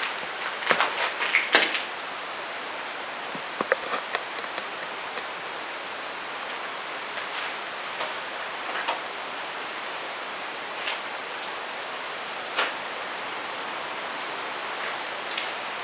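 Steady hiss with scattered light clicks and knocks, bunched together in the first few seconds and then coming singly every second or two.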